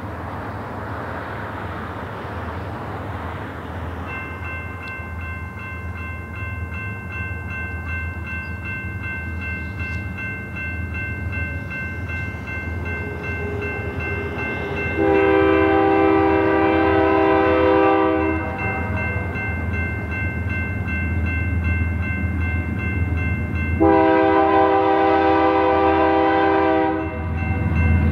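BNSF GE diesel locomotives approaching a level crossing, their low engine rumble growing as they near. The horn sounds two long blasts, one about halfway through and one near the end. From a few seconds in, the crossing's warning bell rings steadily.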